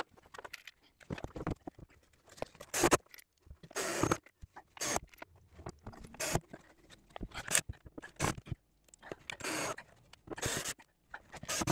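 Irregular scrapes, knocks and rustles of a person climbing a stepladder and clambering onto a timber shelf frame, with a dozen or so separate bumps and scrapes and no steady machine sound.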